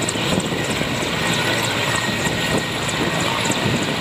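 Military transport helicopter running on the ground with its main rotor turning: a steady engine and rotor noise.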